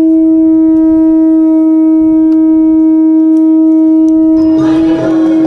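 Conch shell (shankha) blown in one long held note, steady in pitch, with a rich ring of overtones. About four seconds in, a noisier background joins, and the note wavers briefly near the end.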